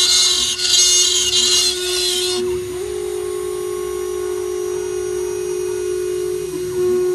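CNC router spindle running with a steady whine while cutting wood, a loud hissing cutting noise over it for the first two and a half seconds. After that the spindle runs on alone, its pitch stepping up slightly about three seconds in and back down near the end.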